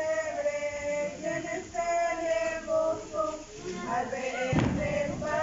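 A group of women's, men's and children's voices singing together, a traditional arrullo (lullaby) sung to the Christ child. A single thump breaks in about four and a half seconds in.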